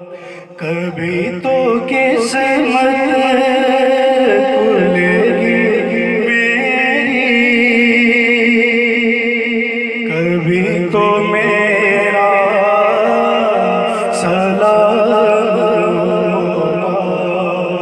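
A man singing a naat (Urdu devotional song) into a microphone, in long held, ornamented phrases with a wavering pitch over a steady low drone, pausing briefly about ten seconds in.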